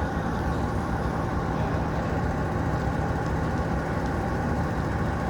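An excavator's diesel engine running steadily with a low, even hum.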